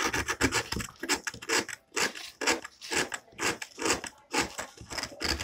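A craft knife shaving and scraping the edges of hard gingerbread pieces, a run of short, irregular scratchy scrapes a few times a second, evening the edges so the pieces can be glued with frosting.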